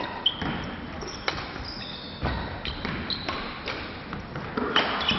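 Badminton rackets striking a shuttlecock in a rally, a sharp crack every second or so, with short high squeaks of sports shoes on the wooden court floor.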